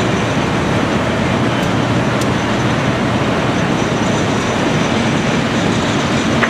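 Caterpillar 345C L hydraulic excavator's diesel engine running steadily.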